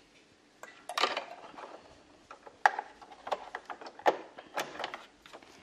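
Irregular clicks and light taps of overcasting presser foot M being handled and snapped onto the foot holder of a Janome DC4030 sewing machine.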